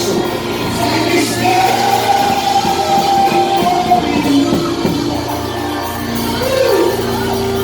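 Live worship music with a voice singing a long held line over a band in a large hall.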